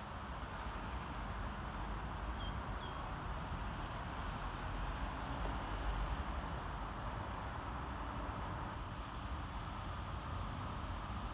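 Outdoor ambience on an empty railway platform: a steady low rumble, with a few faint bird chirps between about two and five seconds in.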